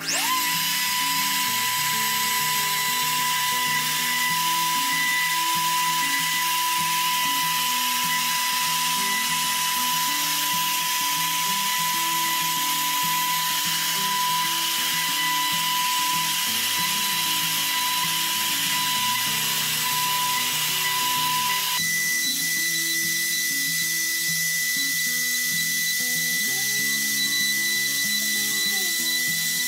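Spindle motor of a homemade CNC router starting up and running with a steady high-pitched whine while its small bit mills a gear outline into plywood. About 22 seconds in, the whine's tone changes abruptly. Background music plays underneath.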